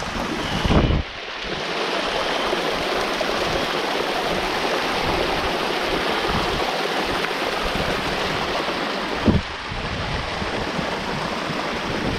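Small mountain waterfall pouring into a rock pool close to the microphone, a steady rush of falling water that grows louder as the camera goes under the fall. Two brief low thumps come through, one near the start and one about nine seconds in.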